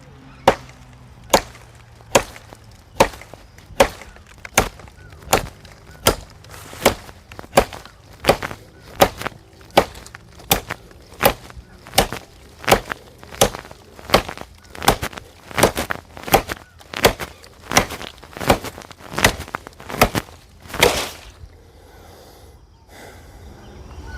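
Heavy machete with a 6.5 mm-thick blade chopping a wood branch: a long series of sharp blows, a bit more than one a second. The chopping stops a few seconds before the end.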